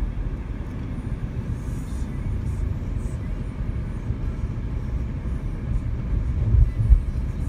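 Low, steady rumble of a car's road and engine noise heard from inside the cabin, with a couple of louder low bumps near the end.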